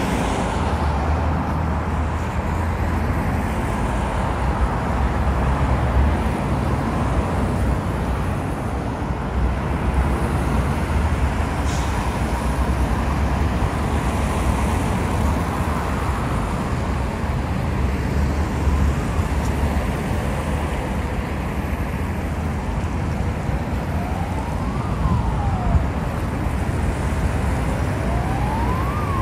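Steady, dense traffic on a wide multi-lane city avenue, with cars, vans and buses passing. From a little past halfway an emergency-vehicle siren wails in slow rising-and-falling sweeps, getting louder toward the end.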